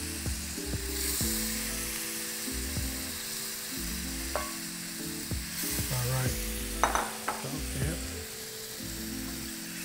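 Shrimp sizzling as they fry in butter in a skillet, a steady hiss, with a few light taps of the tongs as more shrimp are placed in the pan.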